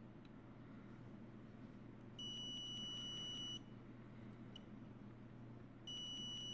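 Continuity beeper of a Kingsdun KS-830L digital multimeter sounding as the probes find a connection: one steady high beep lasting about a second and a half, then a second beep starting near the end. Each beep signals continuity between the probed points.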